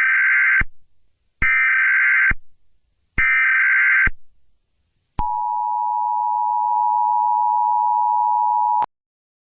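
Emergency Alert System tones: three short bursts of digital alert data, then the steady two-tone attention signal, held for about three and a half seconds before it cuts off suddenly.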